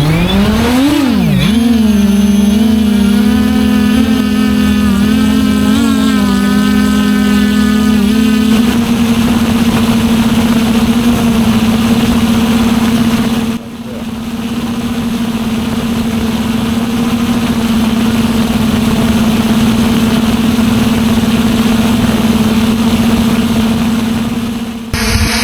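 FPV drone's electric motors and propellers spinning up with a rising whine in the first second, then holding a steady hum.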